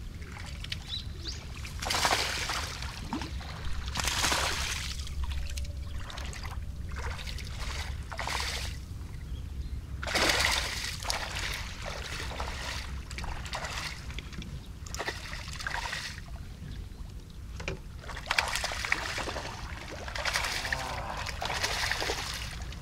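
A hooked herabuna (Japanese crucian carp) thrashing and splashing at the water's surface in repeated bursts while being played in. The fish is foul-hooked by the dorsal fin rather than hooked in the mouth.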